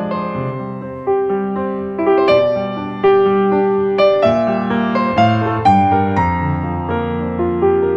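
Background piano music, slow and gentle, with notes and chords struck about once a second and left to ring out.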